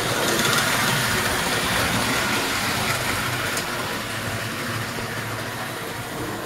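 American Flyer electric toy steam locomotive and cars running on metal track: a steady whir and rumble of motor and wheels, loudest about a second in, then slowly fading as the train moves off.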